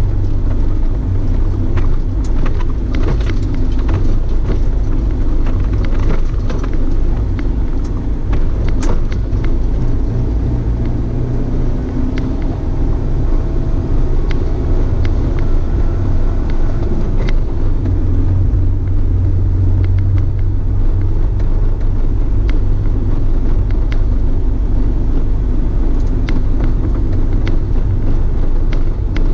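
A car's engine and tyres running steadily along a rough woodland track, a continuous low rumble with scattered clicks and knocks, most of them in the first ten seconds.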